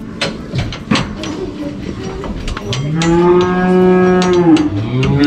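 Cattle mooing twice: a long, low moo about halfway through, then a second starting near the end. Before them, scattered light knocks and clatter.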